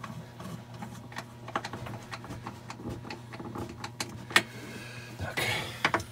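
Scattered light clicks and knocks of hands and a nut driver working on a stainless steel sink's mounting hardware, with one sharp knock about four seconds in and a short scraping sound around five and a half seconds. A steady low hum runs underneath.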